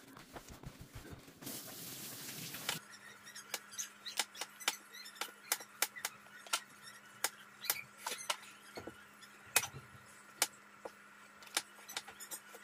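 Hands squeezing and pressing mashed potato filling into aloo chop patties: quiet, irregular sharp clicks and soft pats, over a faint steady hum that comes in about three seconds in.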